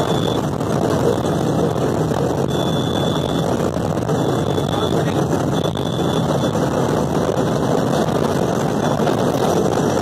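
Steady running noise inside the cab of a WAP-5 electric locomotive travelling at about 160 km/h: an even, continuous rush of wheels on rail and wind, with a faint high whine that comes and goes.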